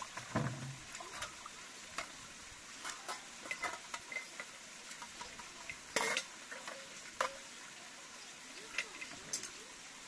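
Dishes and utensils being handled, clinking and knocking irregularly, with a few strikes ringing briefly. The two sharpest knocks come about six and seven seconds in.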